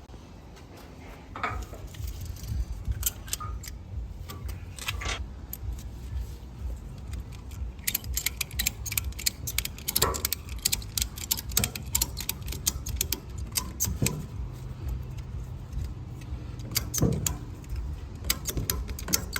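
A small metal ratchet tie-down strap being worked and cranked tight. It gives runs of rapid metallic clicks from about eight seconds in, with a few scattered knocks of the hook and buckle being handled.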